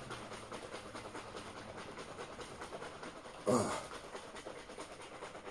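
Protein shaker cup holding milk and protein powder being shaken hard by hand, the liquid sloshing in a fast, even rhythm. A brief vocal sound breaks in about three and a half seconds in.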